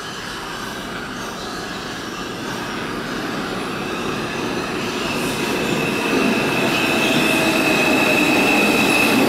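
Subway train running through the tunnel, growing steadily louder, with a high, steady steel-wheel squeal coming in about halfway through.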